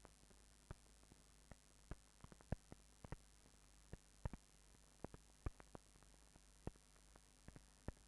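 Near silence on an old film soundtrack: a faint steady hum with irregular clicks and pops scattered through it, a few each second, like dust and scratches on the track.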